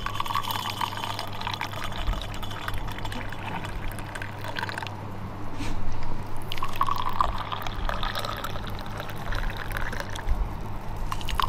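Tea poured in a thin stream from an aluminium kettle into small glass tea cups with sugar in the bottom, glass after glass, with a short break about halfway through as the spout moves on.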